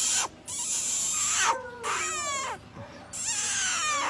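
Alaskan malamute puppy giving a series of short whining cries, each sliding down in pitch, about four in all.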